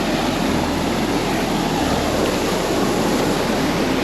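Creek rapids rushing: a steady, loud wash of white water.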